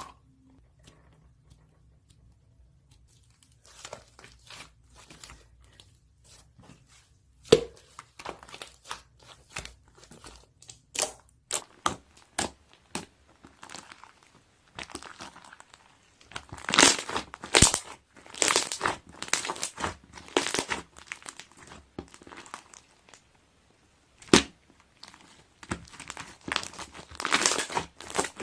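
Thin wrapping material being crinkled and torn: irregular crackles, with one sharp snap about a quarter of the way in, growing busier and louder through the second half.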